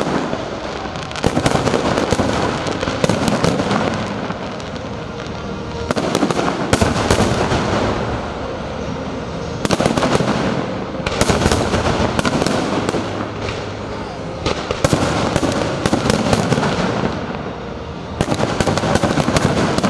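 A fireworks display: dense bangs and crackling from bursting aerial shells, coming in surges every few seconds.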